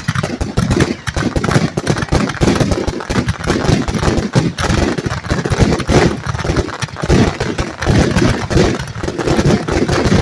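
Fireworks grand finale: a loud, rapid, unbroken barrage of shell explosions going off one on top of another.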